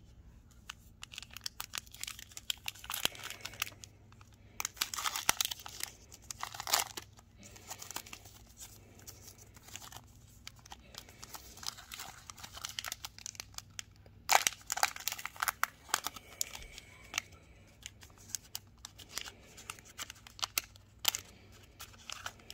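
Foil wrapper of a trading-card pack crinkling and tearing as it is handled and opened by hand, in irregular crackly bursts with two busy stretches, near the start and again past the middle.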